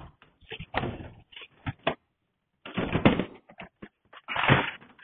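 Hard-shell car roof box (a Pacific 200) being carried and lifted overhead onto roof rails, giving a run of irregular knocks, clunks and scuffs. There is a short pause a little after two seconds, then louder clusters near three seconds and again near the end.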